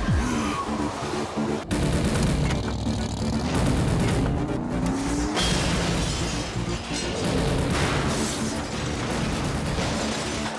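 Film soundtrack: dramatic music mixed with explosion booms, with a loud burst starting about two seconds in.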